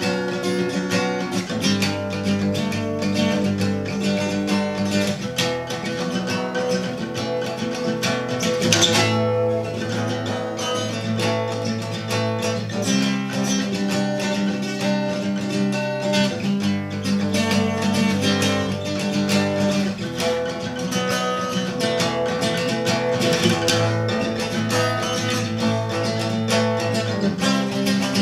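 Steel-string acoustic guitar strummed solo, chords ringing and changing every few seconds, with one sharper, louder strum about nine seconds in.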